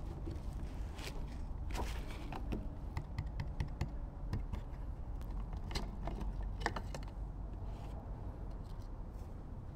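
Light plastic clicks and taps from handling a Peugeot 206 CC rear fog light, with the twist-lock bulb holder being turned out of the lamp housing. A few sharper clicks come past the middle, over a steady low rumble.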